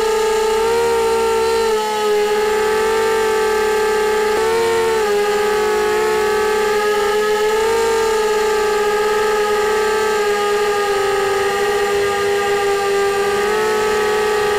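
QAV250 quadcopter's four brushless motors and propellers whining steadily in flight, the pitch wavering and briefly splitting into two close tones as the motors change speed with the throttle and steering.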